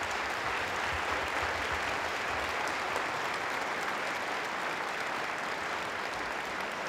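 Audience applauding, a steady round of clapping that holds at an even level.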